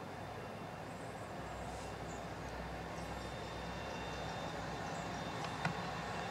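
Class 57 diesel locomotive approaching on a charter train, its engine hum growing steadily louder as it nears. One sharp click near the end.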